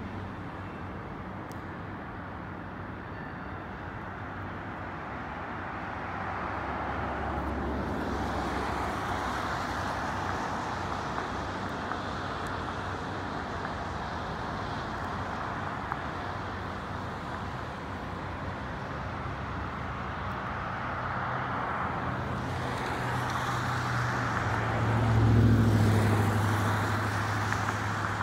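CN freight train of tank cars rolling past, a steady rumble of steel wheels on rail. It grows louder about 25 seconds in, where a low hum swells.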